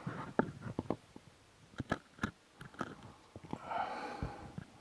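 Scattered small clicks, knocks and scrapes of equipment being handled, with a short rush of breathy noise about three and a half seconds in.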